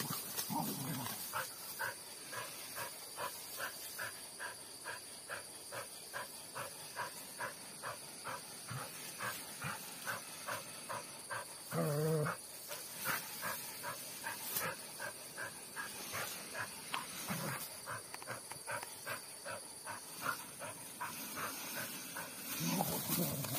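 A dog growling and whining in short bouts: at the start, once about twelve seconds in with a wavering pitch, and again near the end. Between the bouts there is a fast, even pulse of short sounds, about three or four a second.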